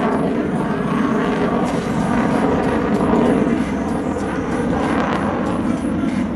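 Jet noise from an F-22 Raptor's twin Pratt & Whitney F119 turbofans in flight, loud and steady, swelling slightly about midway.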